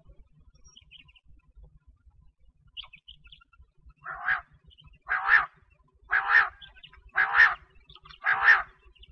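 A quail calling in a series of five short calls, about one a second, starting about four seconds in. A few faint high chirps come before them.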